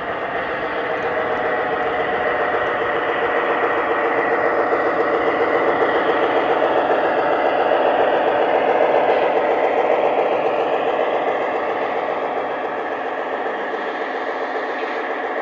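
Model train locomotives running past on the layout's track, a steady rattling rumble of wheels and motors that grows louder toward the middle and then fades as they move away.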